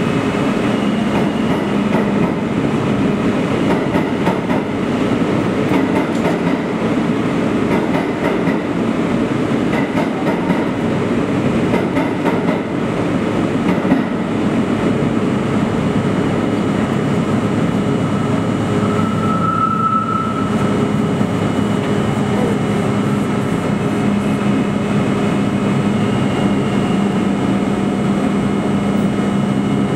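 New York City subway trains in an underground station: a steady rumble with a low hum, which swells in the second half, and a brief higher whine about twenty seconds in.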